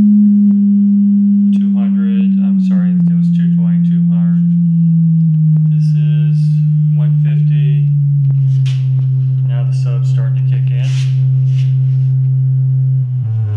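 A pure test tone from a tone-generator app plays through a subwoofer in a ported plywood speaker box during a frequency sweep. It steps down in pitch in small stages, from a low hum to a deeper one.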